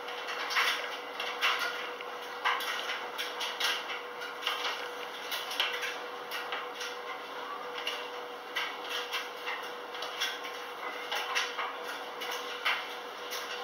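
Speed Queen front-load washer tumbling a load in its wash cycle: irregular clicks and knocks from the drum over a steady hum.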